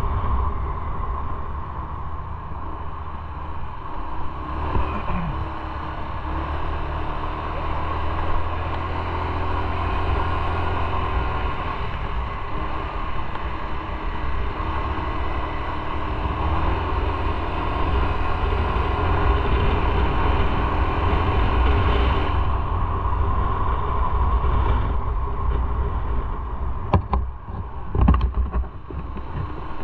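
Motorcycle running at road speed, a steady engine drone mixed with wind and road noise, with a few sharp knocks near the end.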